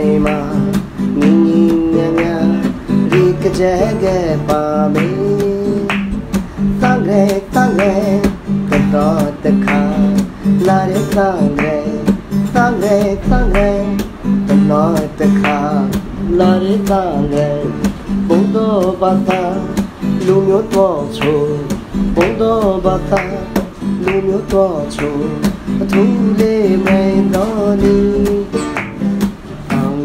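Background music led by plucked and strummed acoustic guitar.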